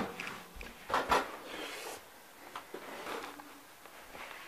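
Handling noise as things are moved about: a pair of sharp knocks about a second in, then quieter rustling and light clatter.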